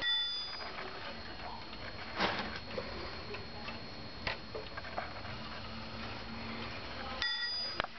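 Dutch wall clock ticking steadily. A short ringing tone sounds right at the start and another near the end, and there are knocks about two and four seconds in.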